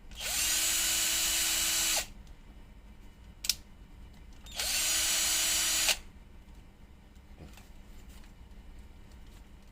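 Cordless drill motor spinning up and running steadily in two bursts, about two seconds and then just over a second, with a sharp click between them; the drill is running on an old 12 V battery.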